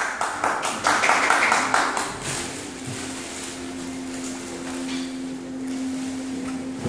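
Crackling and clicking of plastic wrapping and handling for about two seconds. Then a steady low hum from a freshly switched-on Solowheel XTREME electric unicycle, which cuts off abruptly near the end.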